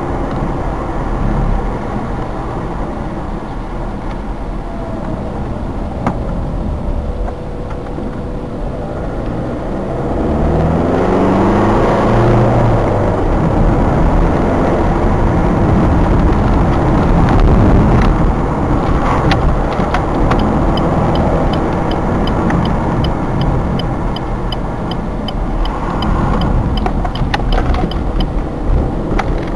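Car cabin driving noise: engine and tyre rumble on a country road, with the engine note rising as the car accelerates about ten seconds in. A light, regular ticking runs through the later part.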